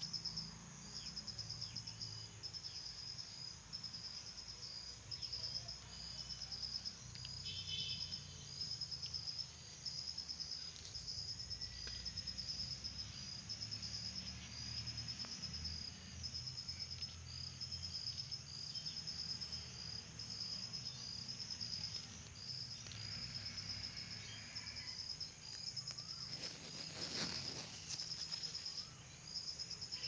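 Crickets chirping in a steady, even rhythm of short high-pitched pulses, over a low background rumble. A brief louder noise rises over them near the end.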